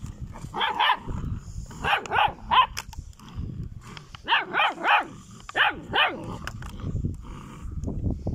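Caucasian shepherd puppies yapping with short, high barks in several quick bursts, with low growling between them as they wrestle in play.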